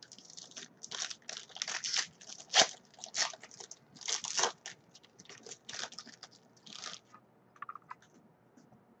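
Foil wrapper of a pack of football trading cards being torn open and crinkled, crackling in irregular bursts that stop about seven seconds in, followed by a few faint clicks.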